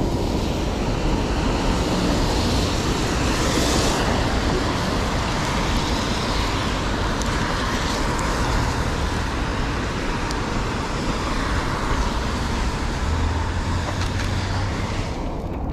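Steady city traffic noise from vehicles on rain-wet roads. A low engine hum stands out briefly near the end.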